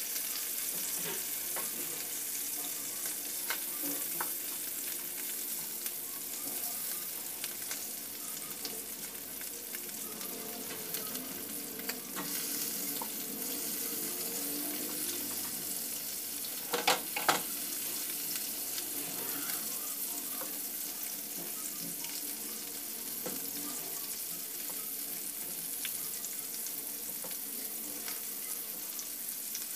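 Whole galunggong (round scad) frying in hot oil in a pan, a steady sizzle. A few sharp knocks a little past halfway, louder than the sizzle.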